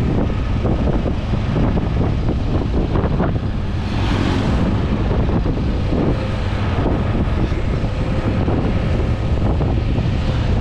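Heavy wind buffeting the microphone of a moving motorbike, over a steady rumble of road and tyre noise, as it coasts downhill without throttle.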